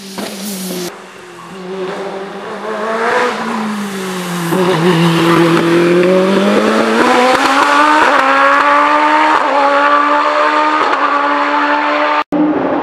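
Single-seater racing car engine running hard at high revs: the note falls as the car slows, then climbs steadily for several seconds as it accelerates away.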